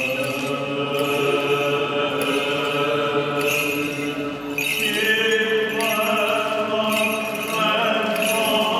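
Greek Orthodox Byzantine chant: voices singing a slow hymn of the Holy Thursday Passion service in long held notes, moving to a new, higher phrase about five seconds in.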